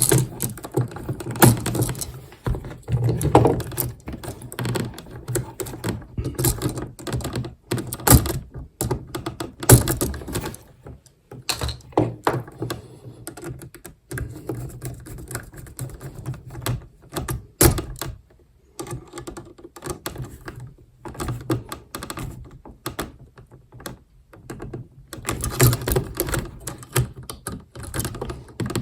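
Irregular clicks, taps and knocks of hand work on household electrical wiring in a wall switch box, with quieter gaps between.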